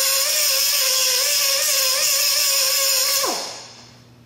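Pneumatic cut-off tool running at high speed on the pedal box, its whine wavering slightly in pitch as it bears on the work. About three seconds in it is released and spins down, the pitch dropping quickly as it fades out.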